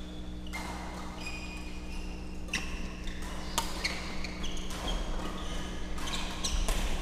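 A badminton doubles rally: sharp racket strikes on the shuttlecock and short shoe squeaks on the court mat, over a steady low hum from the hall.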